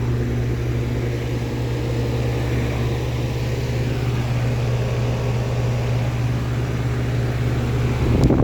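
Outdoor unit of a 1999 3.5-ton Rheem Classic heat pump running in heat mode with its coil frosted over. The compressor gives a steady low hum under the rushing of the condenser fan. The sound cuts off abruptly near the end.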